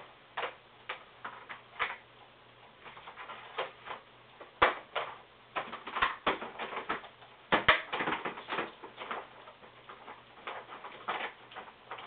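Irregular light clicks and taps, some in quick clusters, with a few sharper knocks about halfway through.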